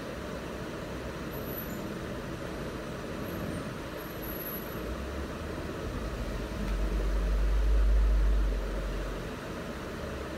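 A steady rushing noise, with a deep low rumble that builds about halfway through, peaks, and fades away near the end.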